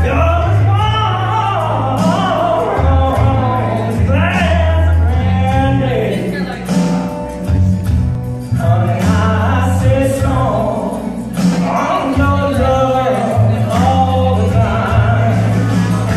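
Karaoke: a man singing into a microphone over a recorded backing track with a prominent bass line, played through PA speakers.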